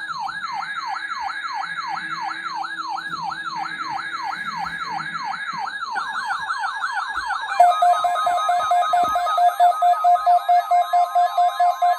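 An electronic siren-style alarm sounding rapid falling sweeps, about three a second. About two-thirds of the way through, a louder pulsing beep tone starts over the sweeps.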